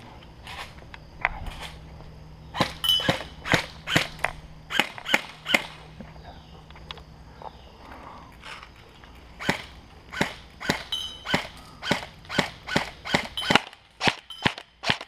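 Airsoft rifles firing single shots one at a time, each a short sharp crack, in an uneven string that quickens to about three shots a second near the end.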